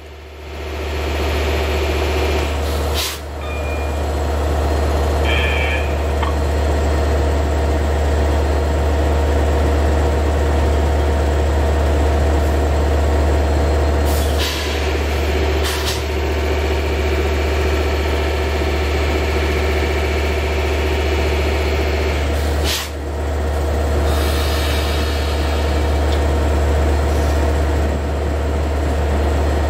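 Diesel-electric DE30AC locomotive of a stopped LIRR passenger train running steadily, a loud deep hum with steady tones above it. A few brief sharp noises cut across it, about three seconds in, twice around the middle, and about twenty-three seconds in.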